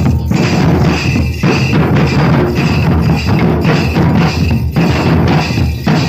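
Several Santali tumdak' barrel drums, double-headed and slung at the waist, beaten by hand together in a steady, dense dance rhythm.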